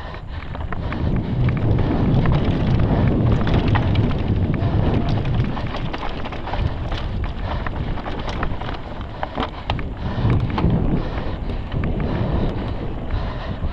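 Wind rushing over the microphone of a mountain bike descending a rocky dirt trail at speed. Under it, the bike rattles and clatters over stones and loose dirt. The rush builds about a second in and then stays loud.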